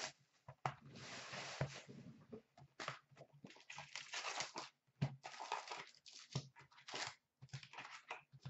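Plastic wrap being torn off a box of hockey trading cards, a rustling rip, followed by crinkling and crackling as the foil card packs inside are taken out and handled.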